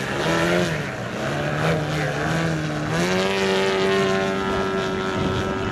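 Large 3D aerobatic RC model plane's engine and propeller, the throttle pumped up and down so the pitch wavers while the plane hangs nose-up in a hover. About three seconds in the pitch jumps up and holds steady at high throttle as it flies out.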